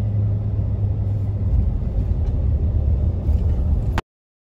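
Steady low rumble of a car driving, road and wind noise heavy in the bass on the phone microphone; it cuts off suddenly about four seconds in.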